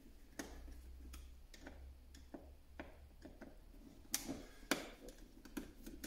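Faint, irregular clicks and ticks of a screwdriver working the metal screws of a flush-mounted wall socket as it is unscrewed, with two sharper clicks about four and four and a half seconds in.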